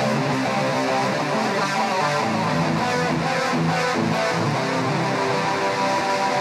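Music led by electric guitar, playing steadily throughout with sustained chords and notes.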